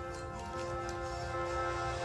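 Calm instrumental background music with long held notes.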